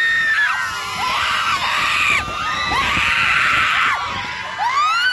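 Several riders on a swinging pirate ship ride screaming together: overlapping long, high screams that rise and fall in pitch.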